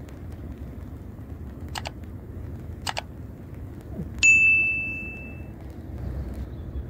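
Small bell on a fishing rod tip tinkling faintly twice, then one clear ding that rings on for about a second: the sign of a fish biting.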